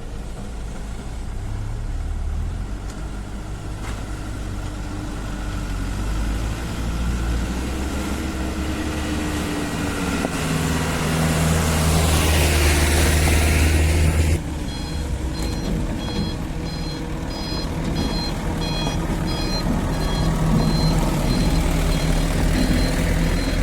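Hydraulic excavator's diesel engine working under load, building to a loud strained run about halfway through and then dropping back abruptly. After that a reversing alarm beeps repeatedly over the engine.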